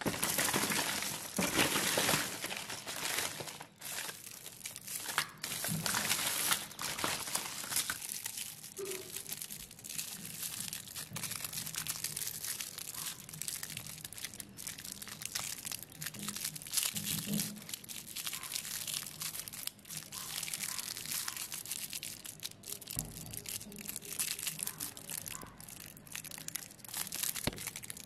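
Shiny foil lollipop wrapper crinkling and crackling between the fingers as it is handled and twisted open, louder in the first several seconds.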